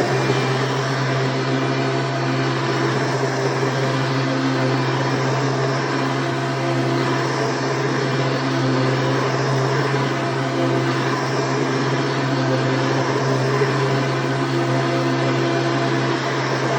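1997 Hoover Preferred Soft & Light upright vacuum cleaner running steadily: a constant low motor hum under an even rushing of air.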